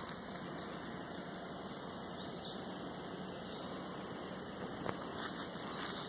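Steady high-pitched insect drone from the surrounding tropical forest over a constant hiss, with a few faint ticks near the end.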